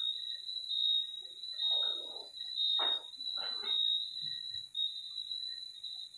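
A steady high-pitched insect trill, with a few short, lower sounds about two, three and three and a half seconds in.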